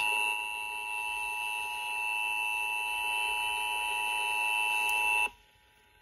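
Emergency Alert System attention signal, the steady two-tone alert tone, broadcast on FM and played through a Midland alert radio's small speaker. It marks the start of an EAS test message and cuts off abruptly about five seconds in.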